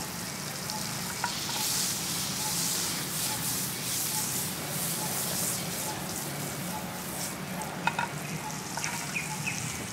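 Butter sizzling and foaming as it melts in a nonstick frying pan over a portable butane gas stove, a crackling hiss that is strongest a couple of seconds in. A few sharp clicks, the loudest about eight seconds in.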